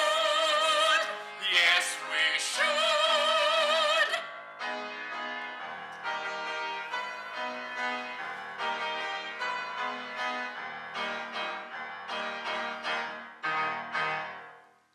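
A man and a woman end an operatic love duet on two long, wavering held notes with heavy vibrato. After about four seconds the voices stop and the instrumental accompaniment plays a closing passage on its own, fading out at the very end.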